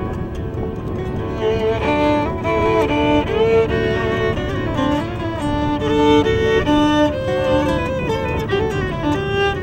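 Violin played with the bow, carrying a melody of held and sliding notes over acoustic guitar accompaniment; the fiddle line gets fuller and louder about a second and a half in.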